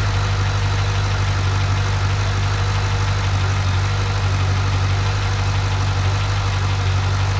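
GM LS7 7.0-litre V8 idling steadily with the ticking sound that the video is about.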